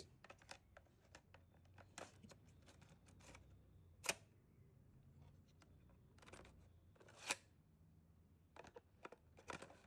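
A 3.5-inch floppy disk being inserted into a USB floppy disk drive and read. The sound is quiet mechanical ticking and clicking, with two sharper clicks about four and seven seconds in and a faint low hum between them.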